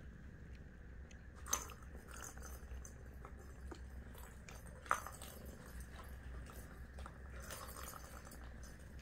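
A British shorthair cat batting and pawing at a plastic track toy with a spring-mounted sisal ball. There are scattered small clicks and knocks, two sharper ones about a second and a half in and about five seconds in, and a stretch of scratchy rubbing near the end.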